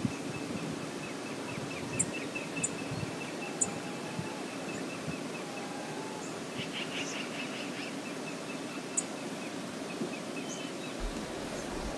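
Steady outdoor river noise with birds calling: a run of quick high notes, a short flurry of chattering about six and a half seconds in, and sharp high chips every second or two.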